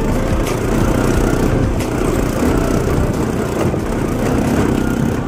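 Motorcycle engine running steadily while the bike is ridden, with a few faint clicks over it.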